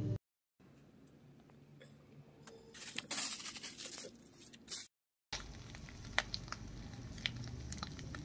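Faint rustling and a few clicks of live silkworms being handled on a plate, then a low steady hum with sparse faint ticks as the silkworms sit in a hot, dry iron wok. The sound drops out to silence twice, briefly.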